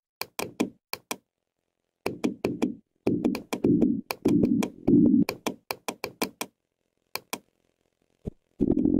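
A rapid, irregular series of sharp knocks or taps, in clusters that are thickest in the middle, with a steady droning sound starting near the end.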